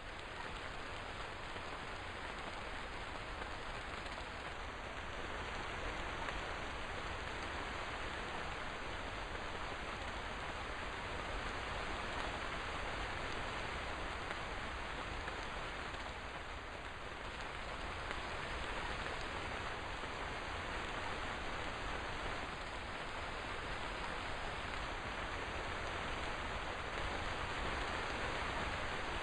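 Steady rain falling, an even hiss of drops with no thunder or other events.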